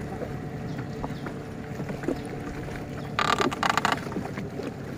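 Steady low rumble of a small boat on the river, with water moving against the hull. About three seconds in, a brief, loud rasping rustle stands out above it.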